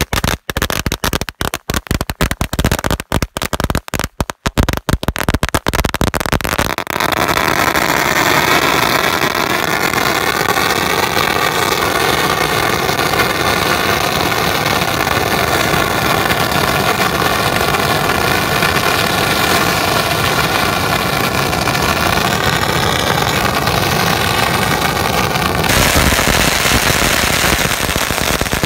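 A huge pile of firecracker strings, about 200,000 firecrackers, going off. For the first several seconds it is a rapid, uneven stutter of separate loud cracks; from about seven seconds in they merge into one continuous, dense crackling that keeps going at full loudness.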